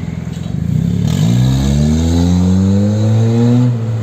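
Hyundai i30 2.0 four-cylinder engine breathing through a two-inch exhaust with an aftermarket diffuser, revved from idle. The pitch rises about a second in, holds high, and drops back near the end.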